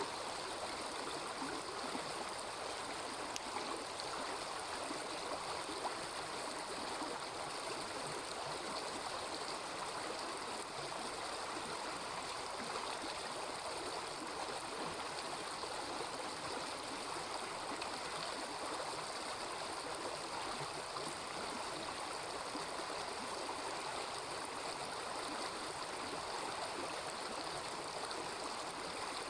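Small river babbling steadily, with a couple of faint clicks about three and six seconds in.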